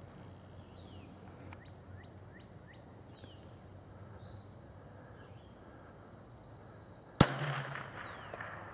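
A single shot from a Keystone Sporting Arms model 722 .22LR rifle about seven seconds in, after a quiet wait: one sharp crack with a short trailing echo.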